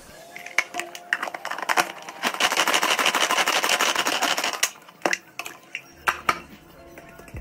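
Manual pull-cord vegetable chopper being pulled, its blades spinning and rattling through cabbage inside the plastic bowl in a fast run of clatter for about three seconds in the middle. A few sharp clicks of plastic and knife come before and after.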